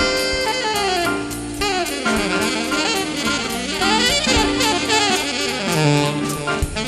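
Live jazz combo: a saxophone plays fast, winding runs of notes over electric bass and a drum kit keeping a steady cymbal beat.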